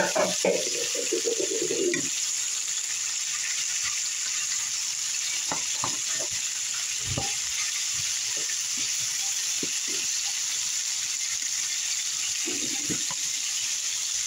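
Sliced zucchini, sweet peppers and onion sizzling in a hot frying pan, stirred with a spatula that knocks against the pan now and then, most busily in the first two seconds.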